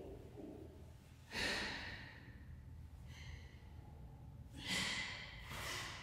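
A person's loud, breathy exhalations, like sighs or gasps. One strong breath comes about a second in, a fainter one around three seconds, and two more in quick succession near the end.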